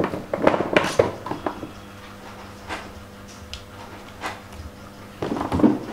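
Handling clunks and knocks as a microphone is readied and connected to an audio mixer: a cluster of sharp knocks in the first second and a half and again near the end, with a faint steady hum between.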